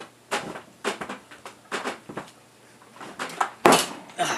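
A series of metallic knocks and scrapes as sheet metal stock is slid into a bench-top guillotine shear and handled against its depth stop. A sharp, loudest clack comes a little before the end.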